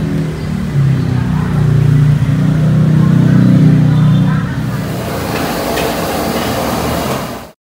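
Road traffic: a motor vehicle engine running close by with a steady low drone that grows louder in the middle, then gives way to a general traffic hiss before the sound cuts off suddenly.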